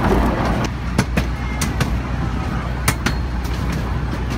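Carriage of a 15-inch gauge miniature railway running along the track: a steady low rumble, with sharp clicks in two pairs about two seconds apart as the wheels cross rail joints.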